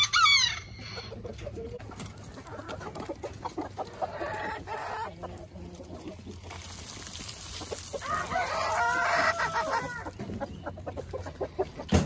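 Chickens clucking, with short calls near the start and about four seconds in, and a rooster crowing once in a long call from about seven to ten seconds.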